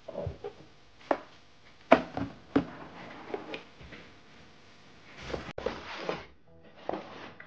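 Metal posters and their cardboard packaging being handled: several sharp taps and knocks, the loudest just under two seconds in, then about a second of rustling and sliding a little after five seconds.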